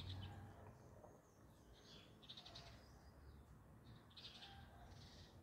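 Near silence with several faint, short, high chirping trills every second or two, from a small bird.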